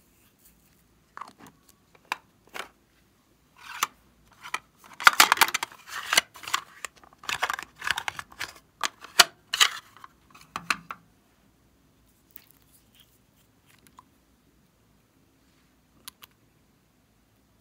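Hard plastic slime container being pried open and handled: a run of sharp plastic clicks and crackles, thickest in the middle, then only a few small clicks.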